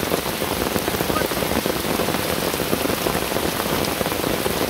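Rain falling steadily, a dense, even patter of drops.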